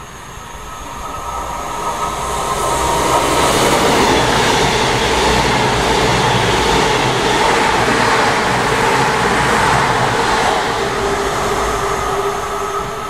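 CrossCountry diesel multiple unit passing through the station at speed without stopping. Its wheels on the rails and its engines build over the first couple of seconds to a loud, steady rush that holds for about nine seconds, then fade as it goes away.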